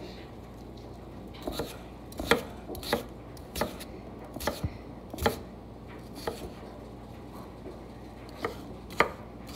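Kitchen knife chopping red potatoes on a wooden cutting board: a string of sharp knocks of the blade through the potato onto the board, coming irregularly about once every half second to second, with a short pause before two last cuts near the end.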